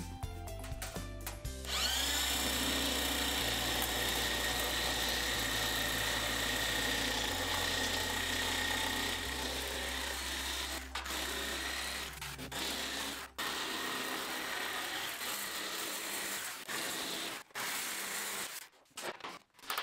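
Electric sheet-metal nibbler spinning up with a rising whine and then running steadily as it cuts through sheet steel. It stops briefly a few times near the end.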